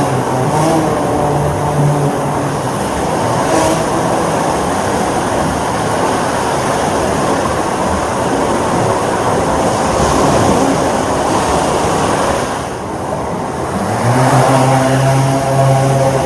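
A multirotor drone's propellers buzzing: a steady pitched hum that turns rougher and noisier through the middle, dips briefly, then returns louder with a slight rise in pitch about 14 seconds in.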